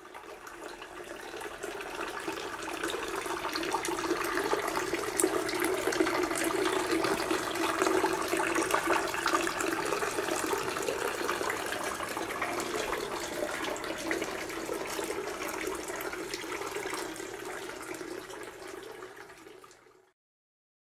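Water from a brick wall fountain falling and splashing steadily into its basin. It fades in over the first few seconds and fades out, stopping shortly before the end.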